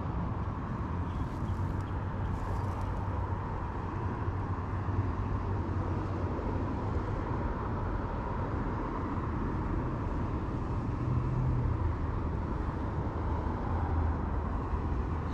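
Steady low outdoor rumble with no distinct events, with a faint steady hum running through it.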